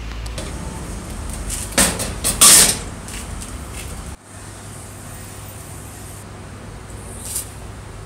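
Metal parts of an old Royal typewriter scraping and clattering as its carriage is handled, with two short loud scrapes about two seconds in. After that comes only a steady low hum.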